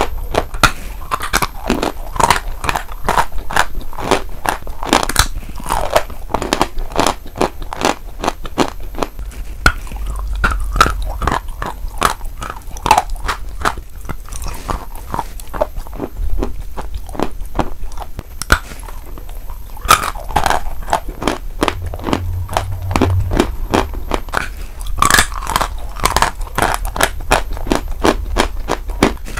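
Close-miked biting and chewing of a white chalk bar: dense, crackly crunching as pieces snap off and are ground between the teeth.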